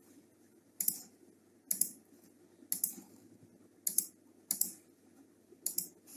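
Computer clicks, about one a second, sharp and short over a faint room hum, as colours are picked and filled in on a paint program.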